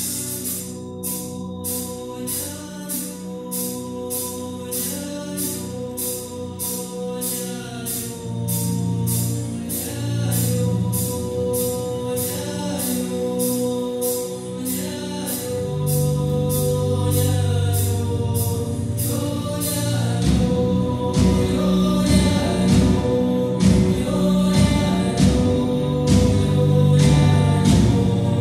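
Live folk-metal band with a symphony orchestra and singing: a steady cymbal beat of about two strokes a second under held orchestral chords and a sung melody. About two-thirds of the way through, the full band comes in, heavier and louder.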